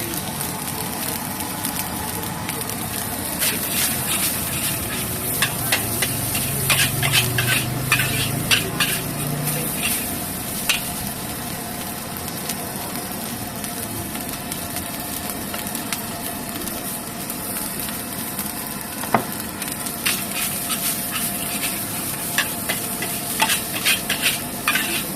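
Fried rice sizzling in a wok while a metal spatula stirs and scrapes it, with two spells of quick clacking strikes of the spatula on the wok.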